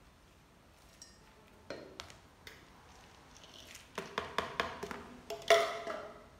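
Kitchen utensils handled on a counter: a few light knocks, then a quick run of sharp clinks and knocks of a spoon against plastic and metal containers, each with a short ring, the loudest about five and a half seconds in.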